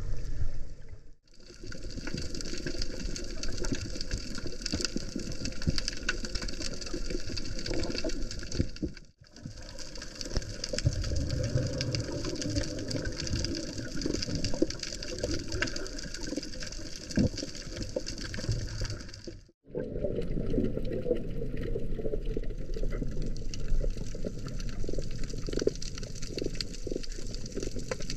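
Underwater sound picked up by a camera in a waterproof housing: a steady rush of water with many small crackles. It drops out briefly three times as the shots change.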